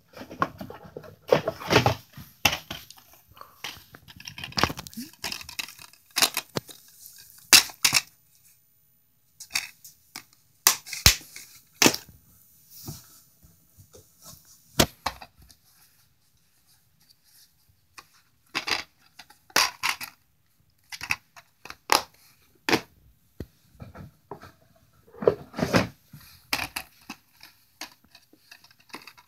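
Plastic DVD cases handled and rustled, with irregular clicks, clacks and crinkling scrapes and a mostly quiet stretch a little past halfway.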